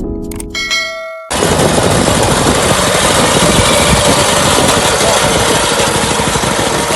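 The end of a short music sting, then, just over a second in, a sudden cut to a small engine-driven farm machine running steadily and loudly.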